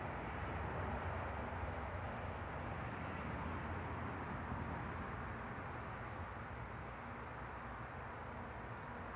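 A cricket chirping, a thin high note repeated evenly several times a second, over a steady outdoor hiss and low rumble.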